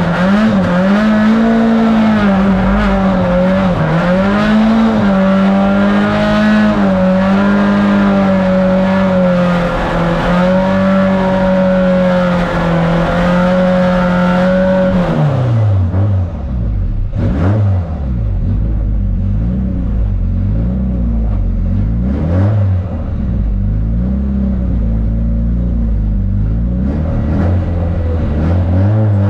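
Turbocharged Nissan 180SX drift car engine held at high revs, its pitch wavering, for about fifteen seconds. The revs then drop and rise and fall repeatedly.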